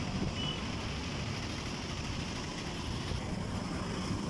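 Street traffic heard from a moving vehicle: a steady rumble of engines and tyres.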